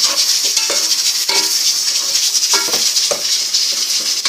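Steady hiss of a pressure cooker running, with a spatula scraping and knocking in an aluminium pot of frying onion and tomato several times.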